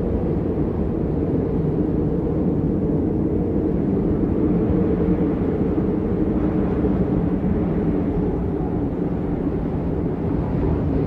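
Meditation soundscape: a steady low rumbling drone with faint held tones inside it.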